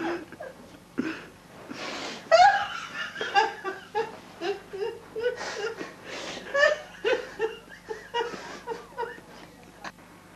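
People laughing hard, in long runs of short bursts, several a second.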